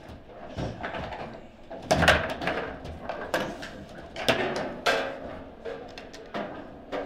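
Foosball table in play: the hard ball struck by the plastic figures and rebounding off the table's walls, along with clacks of the steel rods and handles, as a string of irregular sharp knocks. The loudest hits come about two seconds in and again around three to five seconds in.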